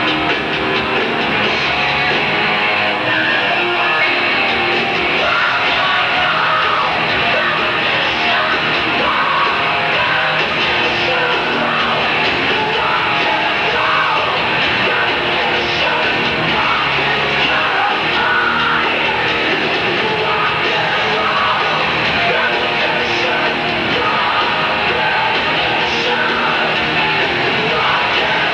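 Glam metal band playing live: distorted electric guitar, bass and drums, loud and steady, with a lead vocal singing over them.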